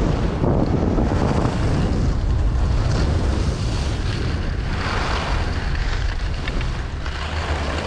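Wind buffeting a body-mounted action camera's microphone during a downhill ski run, with the hiss of skis sliding over packed snow. There is a brighter scrape about five seconds in, and it gets quieter toward the end as the skier slows.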